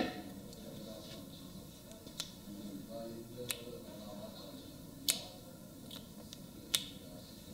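Knuckles cracking as a barber pulls and works a customer's oiled fingers during a hand massage: four short, sharp pops about a second or a second and a half apart, the last two loudest.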